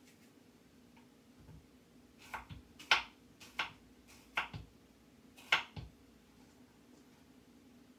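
Kitchen knife cutting through an apple and knocking down onto a thick wooden cutting board: a handful of sharp knocks spread over about three seconds, starting about two seconds in.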